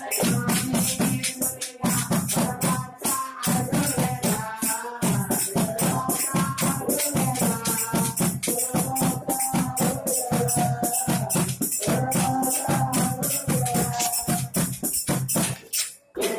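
Group singing of a Tamil Murugan bhajan (devotional song) over jingling hand percussion that keeps a fast, steady beat of about four strokes a second. The music breaks off briefly near the end.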